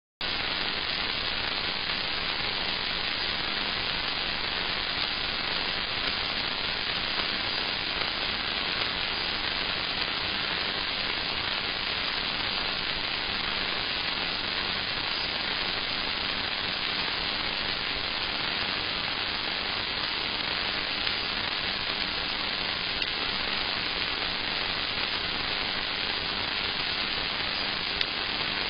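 Steady hiss of static from a CCTV camera's audio channel, cutting in abruptly, with a few faint clicks in the second half.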